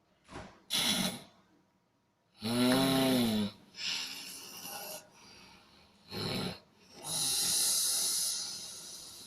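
A sleeping person snoring: a few short rough breaths, then one drawn-out snore with a clear droning pitch about two and a half seconds in, and a long hiss of breath near the end.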